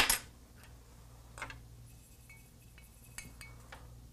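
Small hard clinks of soldering tools being handled on the workbench: one sharp clink at the very start, another about a second and a half in, then a few light ticks.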